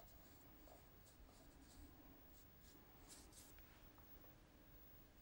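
Faint, soft swishes of a paintbrush stroking wet paint onto paper, a few brief strokes, the clearest about three seconds in, against near silence.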